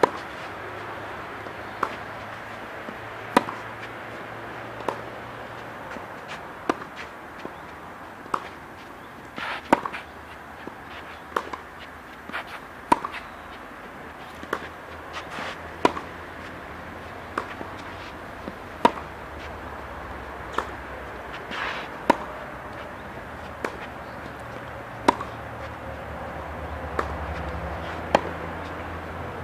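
Tennis rally: rackets striking the ball in a steady rhythm, a sharp pop about every one and a half seconds, with fainter ball bounces between.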